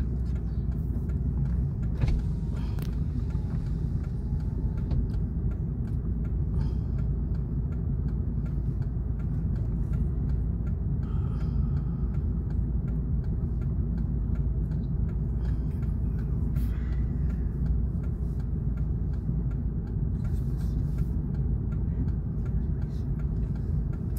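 A vehicle's engine idling, a steady low rumble heard from inside the cab while the vehicle sits stopped, with faint scattered ticks.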